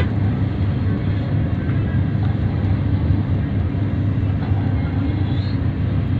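Steady engine and road rumble heard from inside a moving road vehicle travelling at speed, deep and unbroken throughout.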